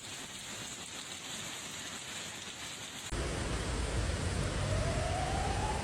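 Steady rain noise; about three seconds in it cuts abruptly to louder, heavier rain and storm noise, over which a faint tone slowly rises.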